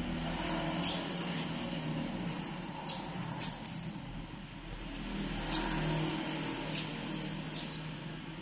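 A low engine hum that swells and fades twice, with short high bird chirps several times.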